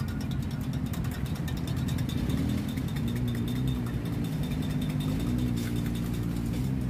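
Steady rumble of road traffic with vehicle engines running, over quick, light metallic clinks of a spoon stirring in stainless steel cups.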